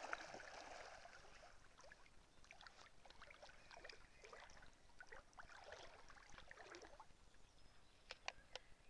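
A dog splashing as it wades into a lake, then fainter splashing and paddling as it swims away. Three sharp clicks come near the end.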